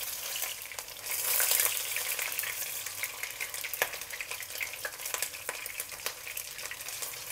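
Pork-and-prawn meatballs shallow-frying in hot oil in a wok over medium heat: a steady sizzle full of small crackles and pops as the meatballs are turned over to brown the other side. The sizzle swells for about a second shortly after the start, and one sharper pop stands out a little before the middle.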